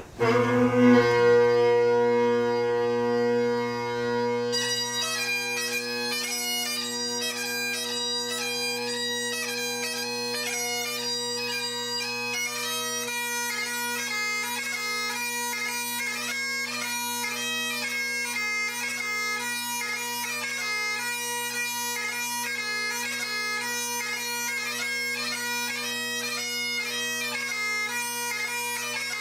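Great Highland bagpipe striking in: the drones and a single held chanter note sound steadily, then about four seconds in the chanter starts the quick melody of a Highland fling tune over the unbroken drones.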